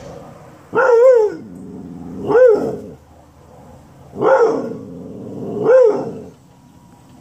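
Dog barking four times, about a second and a half apart, each bark a long call that slides down in pitch at the end. It is barking at a delivery truck.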